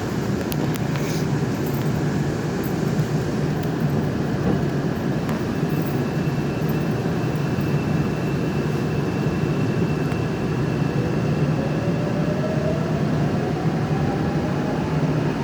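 Busan Metro Line 3 train running, heard from inside the carriage: a steady rumble of wheels on the track, with a faint rising whine from the drive starting about ten seconds in.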